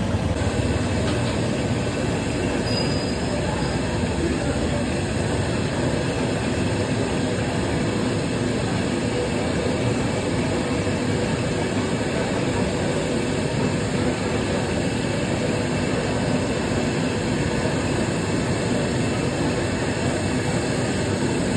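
Steady hiss and low rumble, unbroken throughout, from kachoris deep-frying in a large kadai of oil over a fire.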